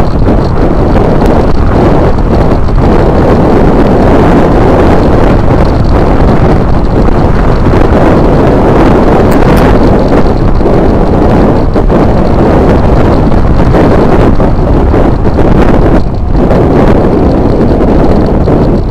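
Wind buffeting the microphone of a bicycle-mounted action camera while riding: a loud, steady, low rumble.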